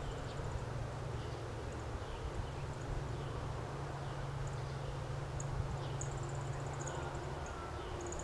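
Steady outdoor ambience of wind and rain in the woods, with a low steady hum underneath. Faint short high chirps repeat many times, most of them in the second half.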